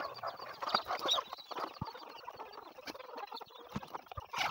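A flock of chickens clucking as they feed, mixed with many short taps and scratches, with a louder burst just before the end.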